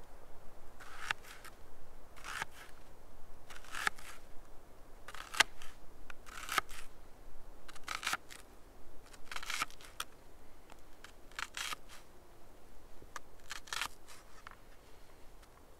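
Large knife slicing through a raw onion and tapping down on a plastic cutting board, a crisp crunch with each cut, about a dozen slow, evenly spaced cuts.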